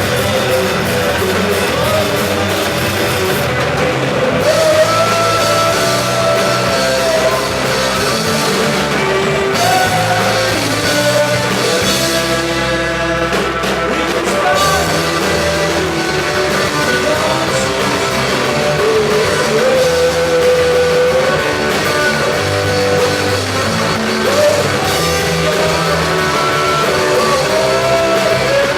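Rock band playing live and loud, with electric guitar and drum kit.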